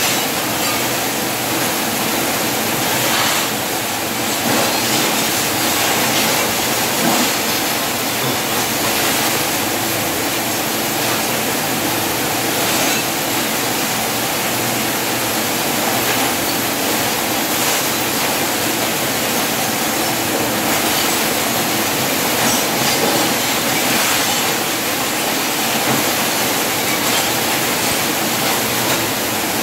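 Arc welding on a steel gate frame: the electrode arc sizzles and crackles steadily and without a break.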